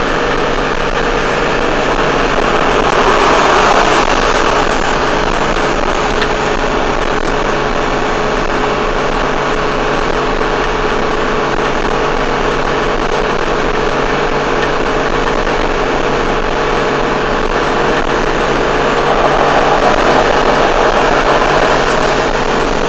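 Cabin noise of a heavy vehicle cruising at highway speed: a steady engine drone mixed with road and wind noise. It swells slightly about three seconds in and again near the end.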